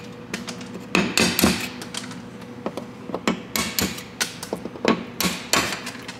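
A small screwdriver prying plastic push clips out of a car's front panel under the hood: a run of sharp, irregular clicks and taps, bunched together about a second in and again near the end.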